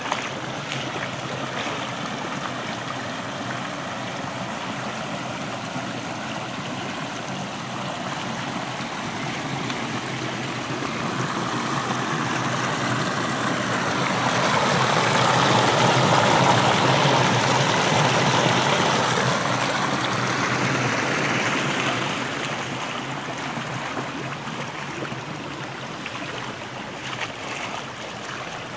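Shallow spring-fed creek water running and rippling over stones and small drops. It is steady, and for several seconds in the middle it swells louder, then eases back.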